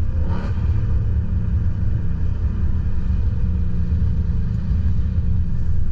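Steady low rumble of wind buffeting and road noise in the cabin of a 2024 Ford Mustang Dark Horse driven at speed with the windows down, with a brief rising sweep about half a second in.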